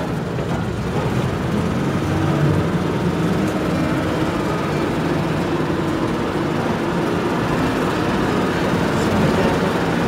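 A minibus in motion, heard from inside the cabin: the engine running with a low wavering hum, under steady road and wind noise through the open side windows.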